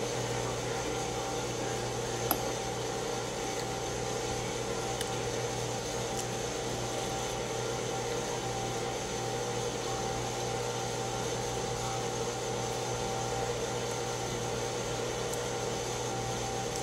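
Steady household machine hum with a few constant tones, like a fan running, and a single sharp click about two seconds in.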